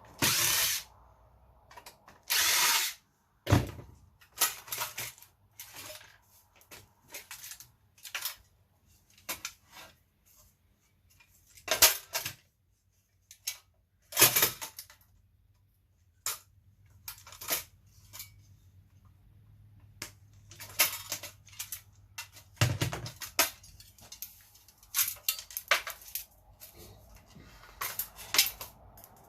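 Power drill-driver running in several short bursts, the two longest in the first three seconds, between them a scatter of knocks and rattles.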